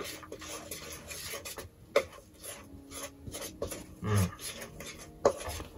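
Spoon stirring and scraping wet batter in a stainless steel mixing bowl: irregular scrapes and light taps against the metal. A short low voice sound about four seconds in.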